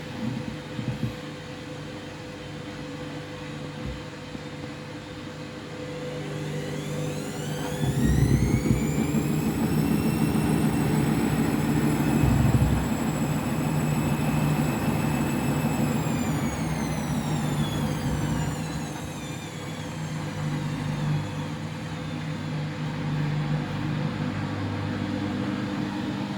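Washing machine on its final spin with an unbalanced load of towels: the motor's whine climbs about seven seconds in, holds steady for several seconds, then winds back down, while the drum rumbles heavily under the off-balance load.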